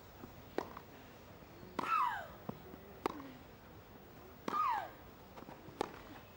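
Tennis rally: the ball is struck by rackets about every one and a quarter seconds, five sharp hits in all. With every other hit, one player gives a loud shriek that falls in pitch, about two seconds in and again about four and a half seconds in.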